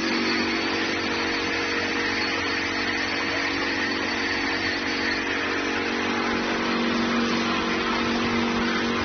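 Caramel coating machine for puffed snacks running: a steady motor hum from the stirring paddle's drive, over the continuous rustle of puffed corn snacks tumbling in the pan.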